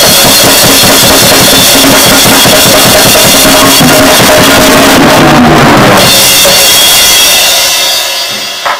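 Drum kit played fast and very loud with sticks, drums and cymbals together. Near the end the playing stops and the kit rings down, with one last hit.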